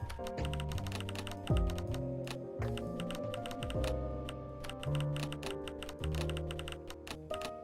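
Instrumental music with held bass and chord notes and a low kick drum, overlaid with rapid, irregular clicks like keys being typed.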